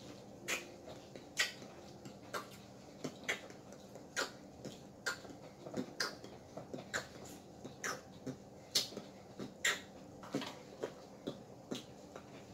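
Close-up eating sounds: quiet, irregular wet clicks and smacks of chewing and lip-smacking, about one or two a second.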